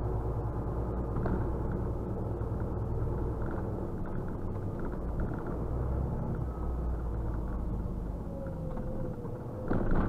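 Truck engine and road noise heard from inside the cab while driving slowly, a steady low drone. A short louder noise comes near the end.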